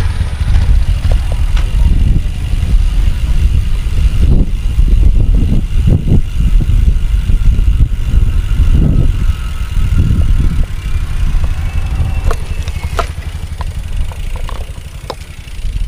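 Heavy wind rumble buffeting the microphone of a bicycle rider's camera, rising and falling in gusts.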